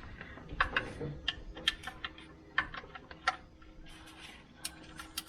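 Irregular clicks and taps of a larger socket ratchet being fitted and worked on a tight oil drain plug.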